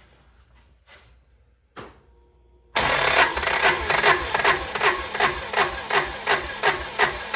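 A Kawasaki Mule 4010's liquid-cooled V-twin being cranked over by its starter with the spark plugs out for a compression test. After a couple of faint clicks, the cranking starts suddenly about three seconds in and pulses steadily about three times a second.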